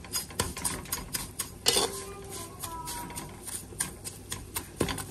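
A spatula scraping and knocking against an aluminium pot while stirring vermicelli roasting in ghee: a run of irregular clicks and scrapes.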